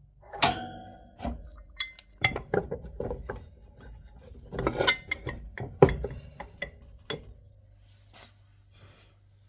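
Metal tools being handled and set down on a hard surface: a string of knocks and clinks, one about half a second in ringing briefly like struck metal, dying away over the last two seconds.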